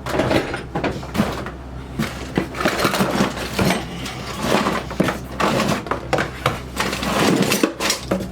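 Hands rummaging through a cardboard box of old metal sewing machine parts: a busy run of knocks, clunks and clatters as heavy pieces are shifted and lifted, with rustling in between.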